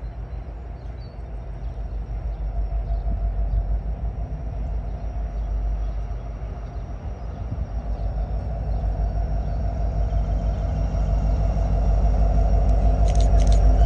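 EMD SD70ACe diesel-electric locomotive's 16-cylinder two-stroke engine rumbling as it approaches at the head of a freight train, growing steadily louder. A run of sharp, evenly spaced high clicks comes in near the end.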